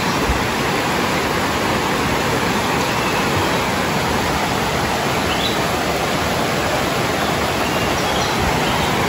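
Shallow rocky river rushing through rapids: a steady rush of white water.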